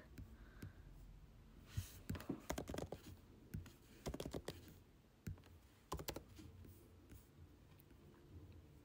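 Faint computer keyboard typing: several short bursts of keystrokes, the last about six seconds in, as text is entered into form fields.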